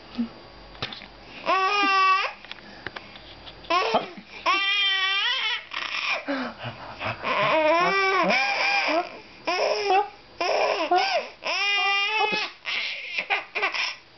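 Domestic cat meowing over and over, a long run of drawn-out rising-and-falling meows one after another, with a few sharp clicks in the first seconds.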